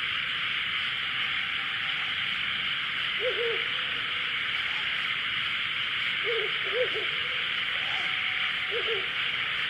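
Ural owl hooting: short, low hoots in small groups a few seconds apart, over a steady high hiss.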